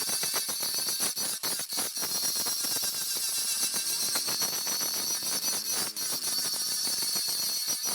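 Steady high-pitched abrasive hiss, as of grinding or sanding in tool work, with many brief breaks.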